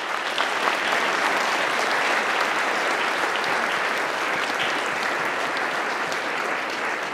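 Audience applauding, many hands clapping together. It builds within the first second, holds steady, and tapers slightly near the end.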